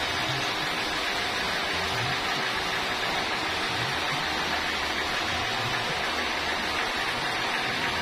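Band sawmill machinery running: a steady rushing noise with a low rumble underneath.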